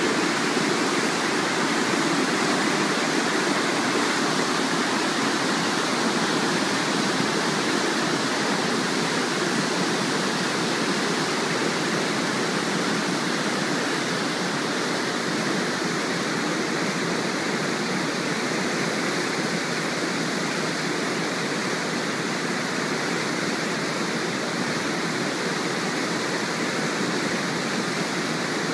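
Steady rushing of a large cruise ship's churning wake water, a little softer in the second half.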